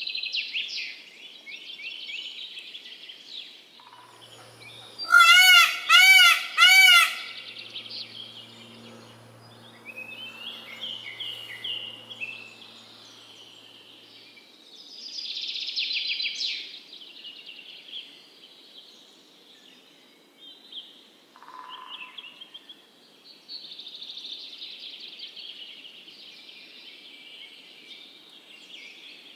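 Songbirds singing and chirping throughout, several high twittering songs overlapping. About five seconds in, a peacock calls loudly three times in quick succession, each call rising then falling in pitch.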